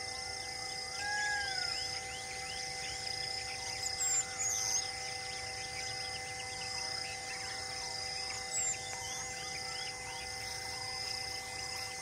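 Outdoor wildlife ambience: a steady chorus of insects with a pulsing high buzz, under many scattered bird chirps. A whistled bird call rises and falls about a second in, and short, louder bird calls come about four seconds in and again near nine seconds.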